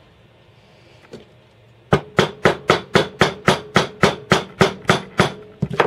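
A hammer tapping a tight-fitting 3D-printed plastic knife handle onto the knife's shank. About two seconds in, a steady run of about a dozen blows begins at roughly four a second, each ringing briefly, and it ends with two quick taps.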